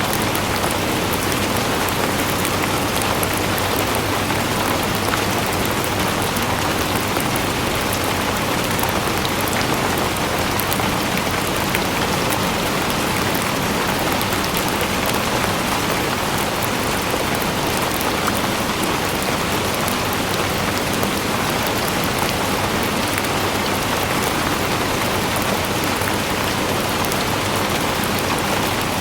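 Steady rain falling on a surface: a dense, even hiss speckled with fine drop patter, with no change in strength.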